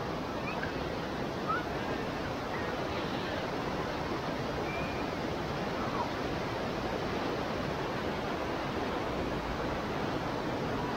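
Fast mountain river rushing over boulders, a steady roar of whitewater rapids.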